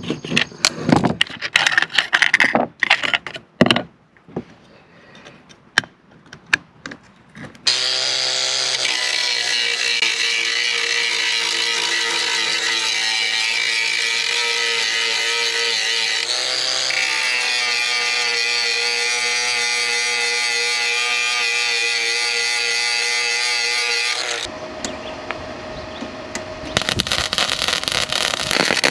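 Metal tools clanking and knocking for the first several seconds, then an angle grinder runs steadily for about sixteen seconds, its pitch shifting once midway before it stops. Near the end the crackle of an electric welding arc begins.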